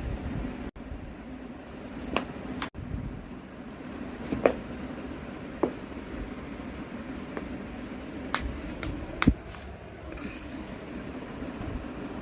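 Scattered sharp clicks and light knocks of small hard objects over a steady low hum, a few seconds apart. Several come close together about eight to nine seconds in, the loudest with a dull thump.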